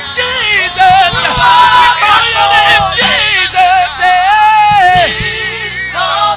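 Worship music with a voice singing, gliding between notes and holding one long note about four seconds in.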